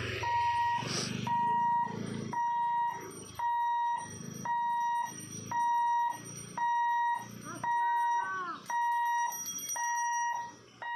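Level-crossing warning hooter beeping steadily, one half-second electronic tone about every second, sounding as the boom barriers are lowered to close the road for an approaching train.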